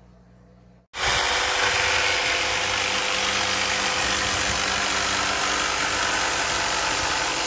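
Corded jigsaw running steadily as it cuts a thin Kydex plastic sheet. It starts suddenly about a second in, after a short quiet moment.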